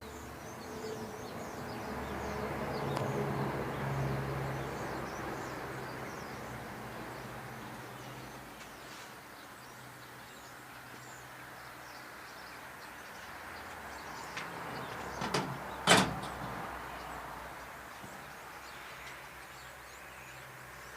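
Budgerigars chirping faintly over a low rumble that swells for the first few seconds. There are a few sharp knocks about three-quarters of the way through; the last, near the end of the cluster, is the loudest sound.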